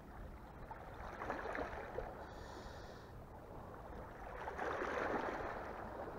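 Small waves washing against the rocks of a stone shoreline, swelling twice, about a second in and more strongly around five seconds.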